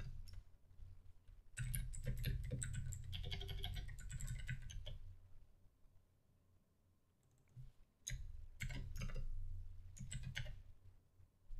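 Typing on a computer keyboard: two runs of quick keystrokes, the second starting about eight seconds in, with a pause of a few seconds between them.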